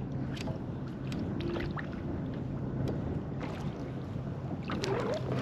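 Wind rumbling steadily across the microphone on a fishing kayak, with scattered light clicks and knocks.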